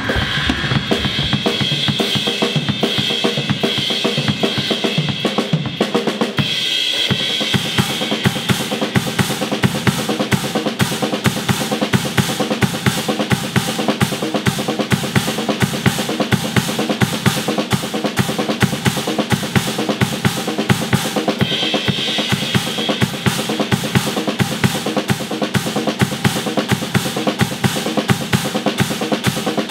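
Acoustic drum kit played with sticks: a fast, dense groove of bass drum and snare with cymbals ringing over it, breaking off briefly about seven seconds in before carrying on.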